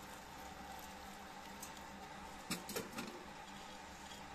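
A metal perforated skimmer clinking and scraping against the pilaf pot a few times in quick succession about two and a half seconds in, over a steady faint background hiss.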